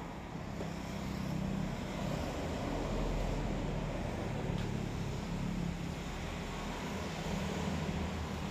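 Road traffic: a motor vehicle's engine giving a steady low drone, a little louder from about a second in.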